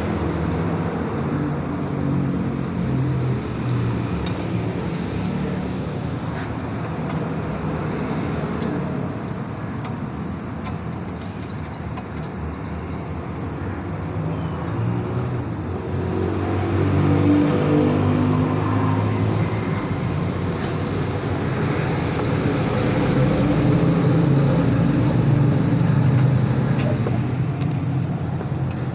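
Passing road traffic, a continuous wash of engines that swells and fades as vehicles go by, with a few sharp metallic clicks from silencer bolts being fitted.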